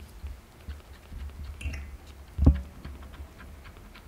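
Kitten suckling milk from a nursing bottle: quick soft wet clicks and smacks at the nipple, over a low rumble, with one dull thump about two and a half seconds in.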